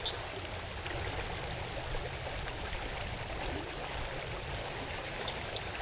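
Creek water running steadily, a continuous even rush. Near the end a faint high chirping repeats a few times a second.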